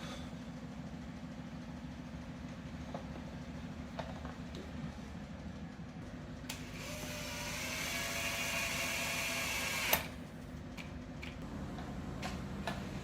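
A steady low hum, joined about halfway through by a small motor whirring for about three and a half seconds, its pitch rising slightly, and stopping with a sharp click.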